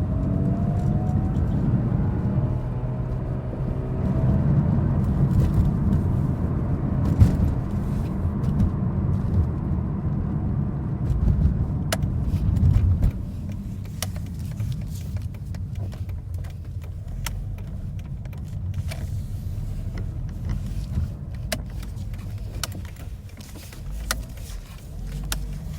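Mazda RX-7 FD3S's 13B twin-rotor rotary engine revving up to about 3000 rpm, making a 'chun chun' chirping abnormal noise near the start. The owner suspects knock, caused by the front rotor's leading and trailing spark plug wires being swapped. The engine holds its revs, then drops back to a quieter idle about 13 seconds in.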